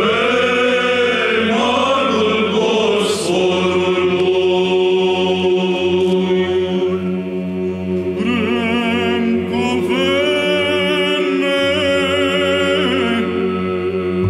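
Men's choir singing Byzantine-style chant: long, drawn-out melismatic phrases over a steady held low drone. From about eight seconds in, a brighter melodic line with quick ornamental turns rises above the drone.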